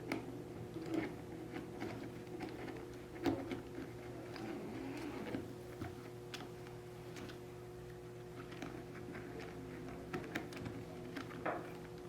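Faint, irregular small clicks and taps with soft rustling, as a thin Boa replacement lace is threaded through the plastic guides of a wading boot and the boot is handled.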